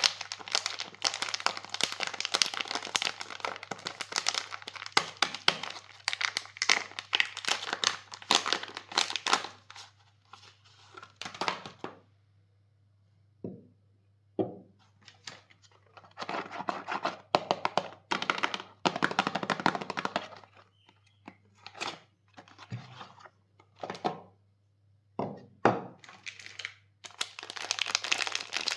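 Soap packaging being unwrapped: wrapper crinkling and tearing in dense stretches, with separate knocks and taps between them as bars are handled.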